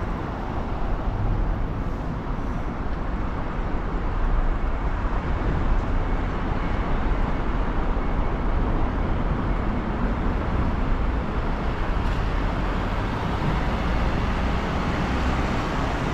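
Steady road traffic: motor vehicles passing on a busy multi-lane city road, a continuous low rumble with no single event standing out.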